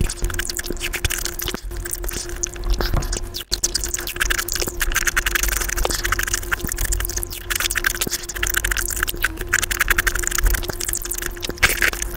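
Close-miked eating of juicy fruit, peach slices, played at five times normal speed: a fast, dense stream of wet chewing clicks and squelches, with a thin steady tone underneath.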